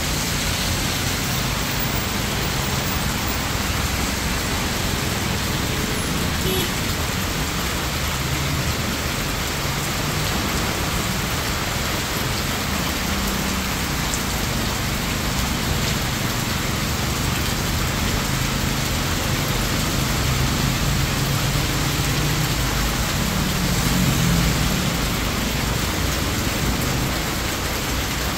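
Heavy tropical downpour: a steady, dense hiss of rain pouring onto wet pavement and surfaces, with the low hum of vehicles idling and moving through the water underneath. The rain swells slightly a little after twenty seconds in.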